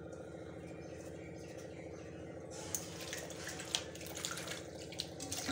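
Hands swishing and rubbing jute leaves in a steel bowl of water, with splashing and sloshing starting about halfway through. A steady low hum runs underneath.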